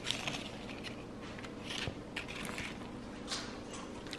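Quiet room tone with a low steady hum and several faint, brief soft noises scattered through it.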